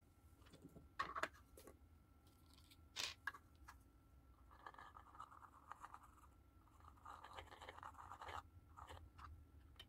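Faint handling noises from a plastic fruit slice and a small glue tube: a few soft clicks about a second in and near three seconds, and stretches of light scratchy rubbing in the middle and later on.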